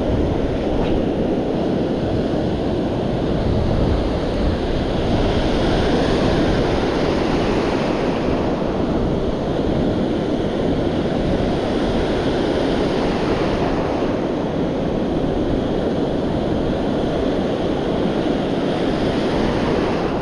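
Ocean surf: waves breaking and whitewater washing in the shallows, a steady, loud rush of water.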